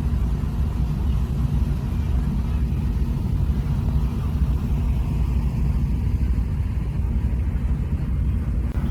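Steady low rumble of a car ferry under way.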